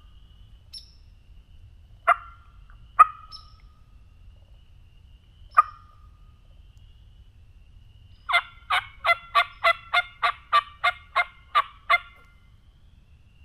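Turkey yelps: a few single sharp notes, then a run of about a dozen evenly spaced yelps, three or four a second, that stops near the end.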